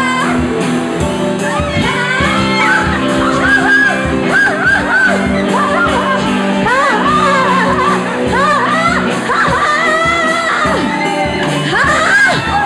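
Live band playing with a steady drum beat, amplified guitar and singing, with many voices shouting and whooping over the music.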